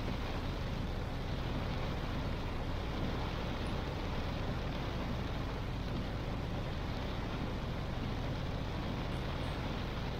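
Car driving in heavy rain: a steady hiss of rain and tyres on the wet road over a constant low hum of the engine and road.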